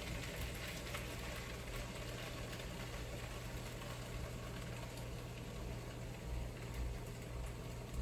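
A silicone spatula scraping a small saucepan as it is emptied, quiet, over a steady low hum.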